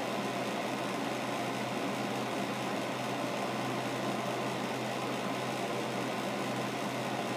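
Steady low hum with an even hiss, unchanging throughout: room background noise with no distinct event.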